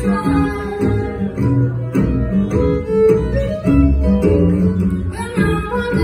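Live acoustic string-band music: acoustic guitar, mandolin, fiddle and upright bass playing together.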